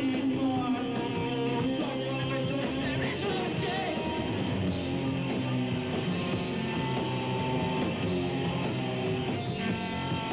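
A punk rock band playing live, electric guitar to the fore, with a singer's voice over the band.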